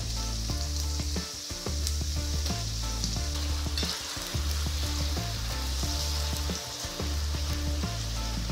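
Sliced potatoes shallow-frying in hot oil in a wok, sizzling steadily. Background music with a stepping bass line plays underneath.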